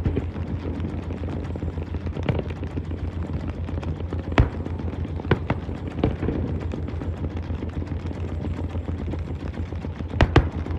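Fireworks going off in sharp bangs a second or few apart, with two close together near the end, over the steady low hum of the cruise boat's engine.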